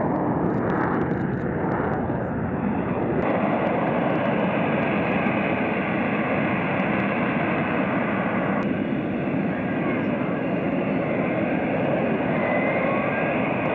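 F-35B Lightning II's jet engine and lift fan running at high power in short take-off and hover mode, a loud, steady jet noise. Its tone shifts abruptly about three seconds in and again about nine seconds in.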